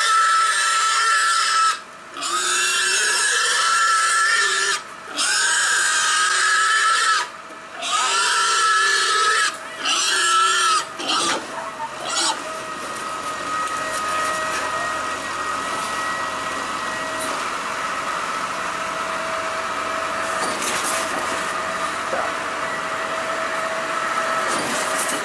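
Domestic pig squealing loudly in a series of long squeals with short breaks while it is being handled. The squealing stops about eleven seconds in, and a wheel loader's engine and hydraulics run on with a steady whine.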